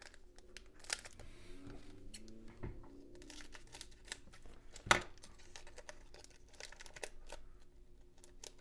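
Foil wrapper of a 2007 Topps football trading-card pack crinkling and crackling as it is handled and torn open, with one sharp crackle about five seconds in.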